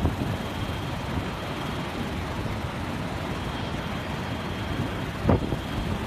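Hurricane wind and driving rain: a steady rushing noise with wind buffeting the microphone, and one short, louder blast about five seconds in.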